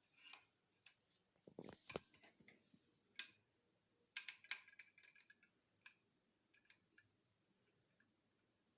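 Faint, scattered clicks and light knocks of small hardware and tools being handled while fitting a towel rack: a cluster about two seconds in, a sharp click near the middle, then fewer and fainter ticks. A faint steady hiss runs beneath.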